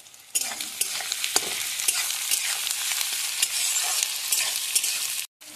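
Sliced onions and green chillies sizzling in hot mustard oil in a metal kadhai, stirred with a spatula that scrapes and clicks against the pan. The sizzling starts suddenly about a third of a second in and cuts off abruptly just before the end.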